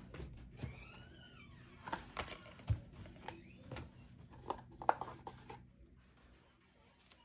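Paper and thin cardboard being handled: the flaps of a small white carton opened and paper inserts and cards shuffled, giving soft rustles and scattered light taps that die away near the end.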